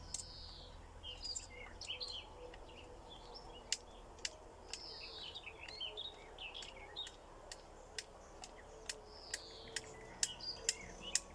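Songbirds singing outdoors: one repeated phrase that opens with a falling whistle comes back about every five seconds, among other chirps. Sharp clicks sound now and then, coming more often near the end.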